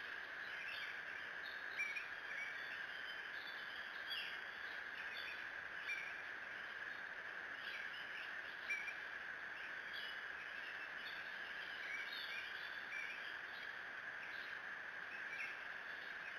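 Short, high bird chirps every second or two, over a steady high-pitched drone.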